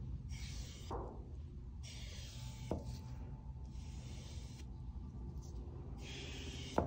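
A foam brush swishing and rubbing wood stain onto a bare wooden block in a series of strokes, each a scratchy hiss about half a second to a second long. A few light knocks fall between the strokes, the sharpest near the end, over a steady low hum.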